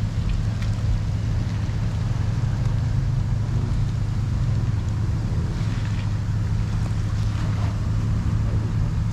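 Pickup truck's engine running steadily as it reverses a boat trailer down a launch ramp: a constant low drone.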